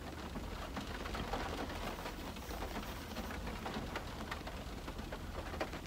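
Steady rain falling on a car, heard from inside, with scattered drops ticking.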